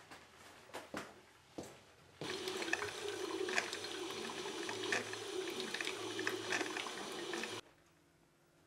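Electric drip coffee maker brewing into its glass carafe: a steady gurgling hiss with crackle that starts suddenly about two seconds in and cuts off just before the end. A few light clicks and knocks come before it.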